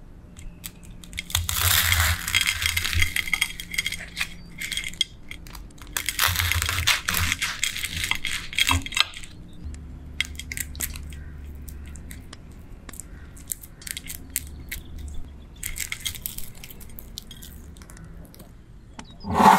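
A knife crunching through the crisp fried breadcrumb crust of a rice ball in two spells of dense crackling, then softer crackles as the ball is pulled apart. A louder, sharper sound comes right at the end.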